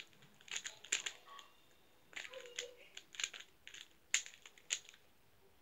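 A plastic 3x3 Rubik's cube being turned by hand during a solve: quick clusters of clacking clicks as the layers are twisted, dying away about five seconds in.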